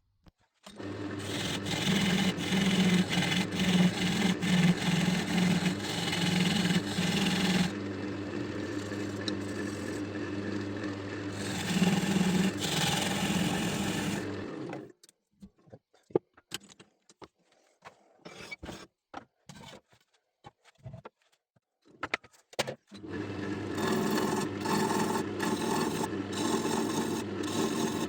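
Wood lathe running with a steady hum while something rubs and rasps against the spinning epoxy resin egg. About halfway through it stops, leaving scattered clicks and knocks, and near the end the hum and rasping start again.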